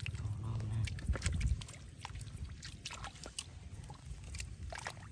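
Scattered short splashes and clicks of disturbed shallow water, over a low rumble.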